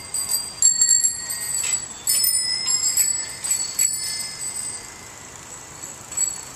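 Several bicycle bells ringing over one another, struck again and again through the first four seconds, then quieter with one more short ring near the end.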